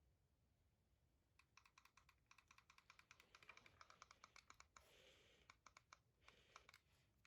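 Typing on a gaming keyboard: a quick run of keystrokes starting about a second and a half in, thinning out into a few scattered key clicks with softer brushing sounds of hand movement between them.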